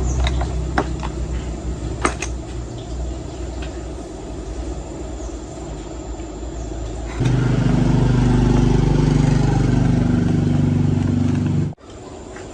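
A small engine running with scattered clicks. About seven seconds in it gives way to a louder, steady engine drone, which cuts off abruptly near the end.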